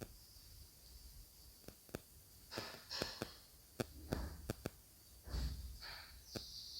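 Faint handling noises: scattered small clicks and several short rustles as double-sided tape is pressed onto the fingers of a plastic glove.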